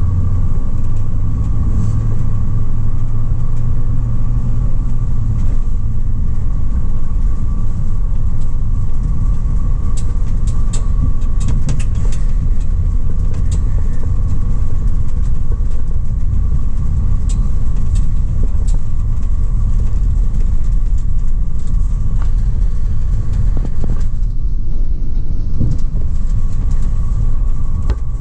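2004 GMC Savana 3500 dually box van driving, heard from inside the cab: a steady low engine and road rumble with a steady mid-pitched hum and scattered light clicks and rattles. The low rumble is heaviest in the first few seconds and then eases slightly.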